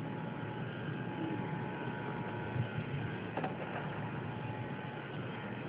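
Steady mechanical hum with a faint whine, and a faint click about three and a half seconds in.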